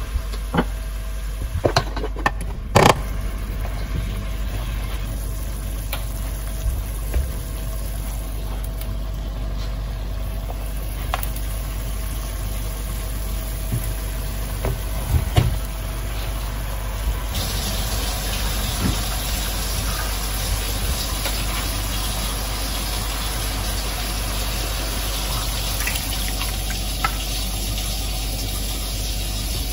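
Steady low machine hum with a few scattered clicks and soft knocks from food and utensils being handled at a pot on the stove. A little past halfway, a faint hiss rises and stays.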